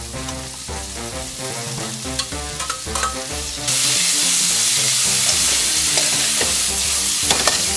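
Sliced pork belly sizzling in hot oil in a wok, stirred with a metal ladle that scrapes and taps against the pan. About four seconds in, the sizzle turns suddenly louder as sliced onion and carrot go into the hot wok.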